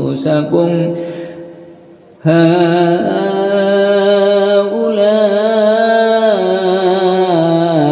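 Quran recitation in a slow, melodic style: a single voice drawing out long notes that step up and down in pitch. The voice fades out for a breath about a second in, then comes back with one long unbroken phrase.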